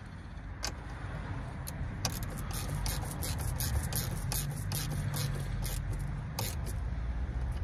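Ratchet spanner clicking in short irregular bursts as the nut on a car battery's positive terminal clamp is tightened, over a low steady rumble.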